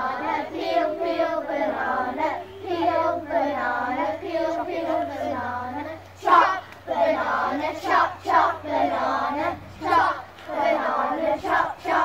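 A group of young children singing a campfire action song together. From about six seconds in, the singing comes in short, louder bursts with brief breaks between them.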